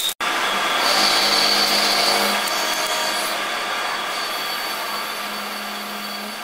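Metal lathe machining a steel shaft: a steady cutting noise with a thin high whine and a low hum. It cuts out for an instant just after the start, then slowly fades.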